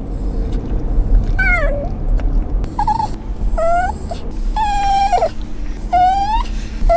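Italian greyhound whining and crying inside a moving car: about five high, pitched whines, some rising at the end and one held longer near the middle, over the low hum of the car.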